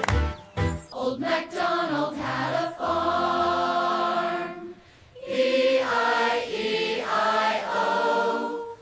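Children's nursery-rhyme singing with backing music: two long sung phrases of held notes with a short break about halfway.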